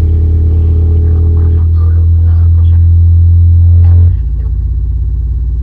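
Loud, steady low bass drone from an industrial noise music piece, switching to a different note about four seconds in.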